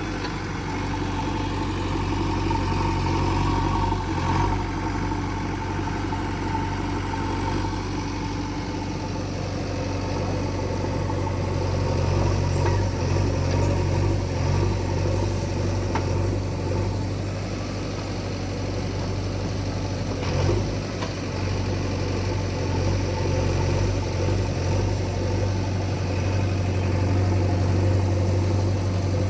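JCB 3DX backhoe loader's diesel engine running steadily with a low hum, with a few brief knocks over it.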